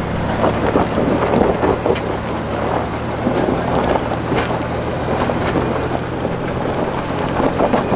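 Off-road truck engine running steadily as the truck crawls over rock, with its tyres crunching and grinding on loose rock and gravel, and wind buffeting the microphone.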